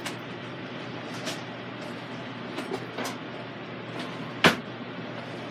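Ground beef sizzling in an Instant Pot's stainless steel insert on the sauté setting, with scattered small pops over a steady low hum. A single sharp knock about four and a half seconds in is the loudest sound.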